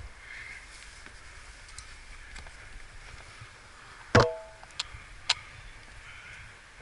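Climbing hardware clinking against rock once, a sharp metallic clink with a brief ring, followed by two lighter ticks about half a second apart.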